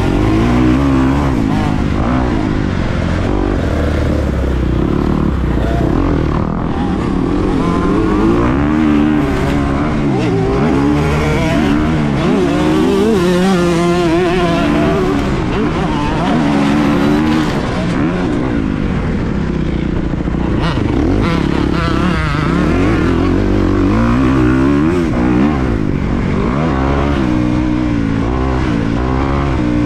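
2023 Kawasaki KX250's four-stroke single-cylinder engine under hard riding, revving up and falling back over and over as the throttle is worked, each rise and fall lasting a second or two.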